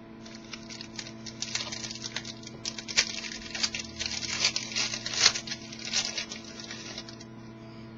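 Trading cards and their packaging being handled: a quick, irregular run of light rustling, sliding and clicking that stops near the end. A steady electrical hum runs underneath.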